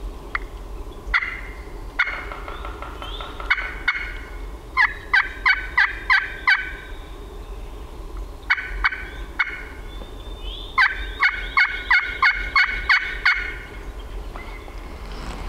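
Hen-turkey yelps played on a friction pot call with a striker, calling to a gobbler. A few single notes come first, then a run of about six yelps about five seconds in and a longer run of about nine near the end.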